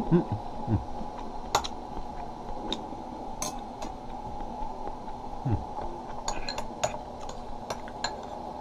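Metal spoon and chopsticks clinking lightly and irregularly against a ceramic rice bowl and plate, with a cluster of quicker clinks in the second half. A couple of short low mouth sounds come near the start and again past halfway, over a steady background hum.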